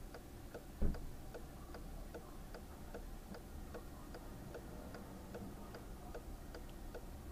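Car indicator flasher ticking steadily, about two to three ticks a second. A single dull thump about a second in.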